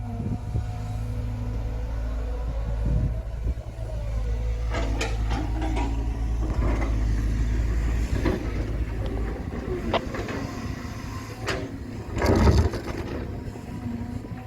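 Excavator diesel engine running steadily while the machine works, with scattered knocks and scrapes of the bucket and soil, the loudest a couple of seconds before the end.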